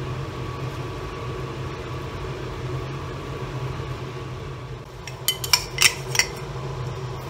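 Water boiling in a large pot over a steady low hum, then several sharp metallic clanks about five to six seconds in as a stainless steel bowl and utensils are handled.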